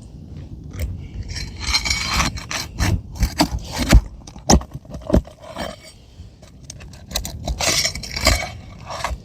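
Asphalt roof shingles being worked loose by hand and tool: repeated scraping with sharp clicks and metallic clinks as the shingles are pried up and nails are worked.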